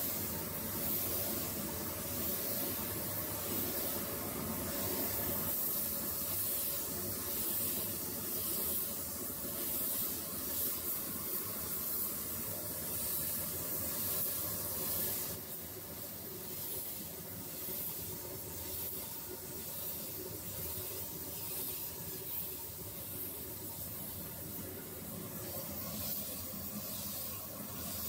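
Air-fed gravity-feed paint spray gun hissing as it sprays paint onto a car's door panel, the hiss swelling and easing in repeated short passes. It drops a little in level about halfway through.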